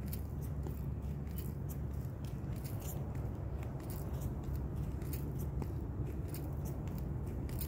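Steady low wind rumble on a handheld phone's microphone while walking, with light crisp clicks and scrapes about twice a second.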